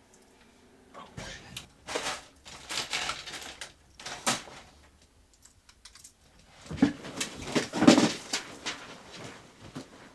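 Small hard objects clattering and clicking on a desktop as they are rummaged through and picked up, in two bursts of quick knocks with a short pause between.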